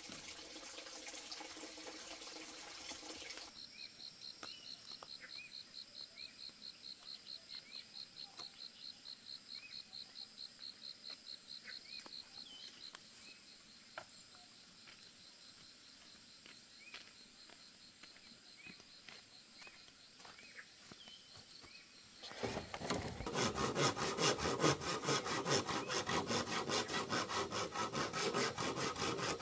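An insect trilling in a fast, even pulse, with scattered short chirps. Then, about three-quarters of the way in, a hand saw starts cutting through green bamboo poles in even strokes, about two a second; this is the loudest sound.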